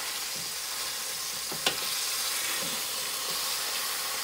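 Ground beef frying as it browns in a pot: a steady sizzle, with one sharp click about one and a half seconds in.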